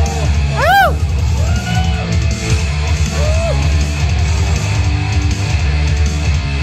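Loud rock music with heavy guitar. A few short rising-and-falling pitch swoops sound over it, the loudest about a second in.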